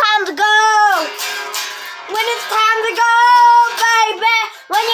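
A child singing a melody in long held notes, the pitch bending at the ends of phrases, with no clear backing instruments.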